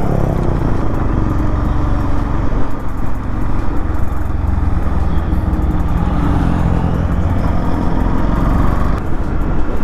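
Motorcycle engine running steadily while riding, heard through a helmet-mounted action-camera mic, with a heavy rush of wind and road noise.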